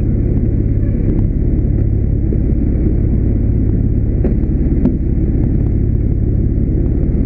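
Fire engine's diesel engine running steadily while parked, a loud even rumble with a fast regular throb.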